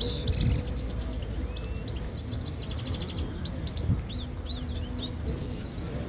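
Grey-headed goldfinches singing: a fast, twittering run of high chirps, trills and short arching notes, over a low background rumble.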